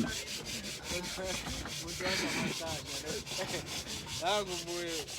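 Steering-column trim panel of a 1993 VW Jetta Mk3 rubbing and scraping as it is handled and fitted back in place.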